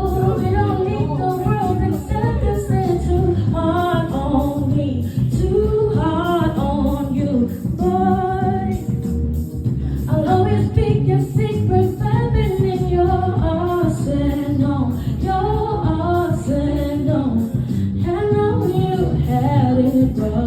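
Singing with gliding, drawn-out sung lines over a bass-heavy musical accompaniment.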